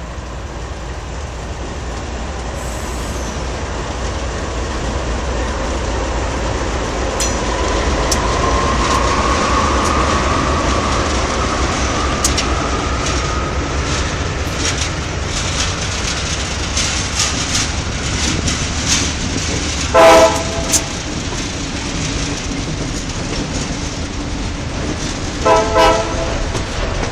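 A diesel-hauled freight train passes close by: the GE C36 lead locomotive and the units behind it run with a steady low rumble and a slowly rising whine, followed by rapid clicking of wheels over the rail joints as the empty hopper cars roll by. A horn sounds loudly twice, briefly about 20 seconds in and again near the end.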